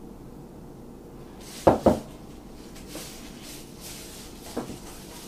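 Gloved hands handling and rubbing a raw pork shoulder on a metal sheet pan. Two quick knocks come about two seconds in, as the meat is moved against the pan, then plastic gloves rustle over the meat, with a softer knock near the end.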